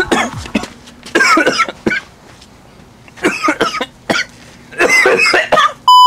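A person coughing hard in three bouts, each a cluster of coughs lasting under a second. Right at the end a loud, steady electronic beep sets in.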